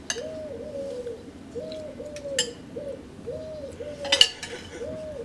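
A dove cooing over and over in a steady, repeating phrase, with a few sharp clinks of a metal spoon against a soup plate, the loudest about four seconds in.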